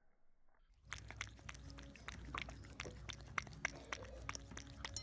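Cat lapping milk from a saucer: a quick run of sharp clicks, several a second, starting about a second in.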